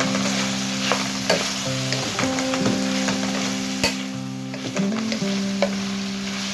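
Food frying and sizzling in a pan, stirred with a utensil that clicks and scrapes against the pan several times.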